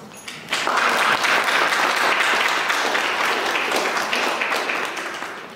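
Audience applauding, starting about half a second in and fading away near the end.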